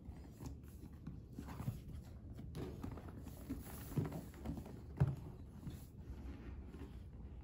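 Hands handling and turning over a cardboard product box: soft scuffs and a few dull thumps. The clearest thumps come about four and five seconds in.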